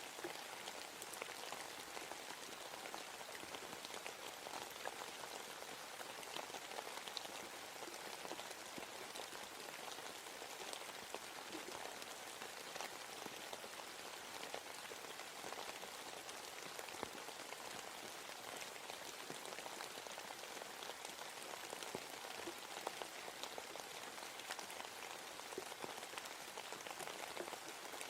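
Steady rain falling on a forest, a dense patter of many small drops with no let-up.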